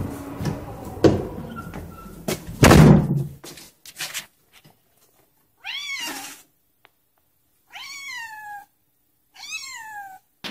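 A heavy thump about three seconds in, then a domestic cat meows three times, each meow rising and then falling in pitch, about two seconds apart.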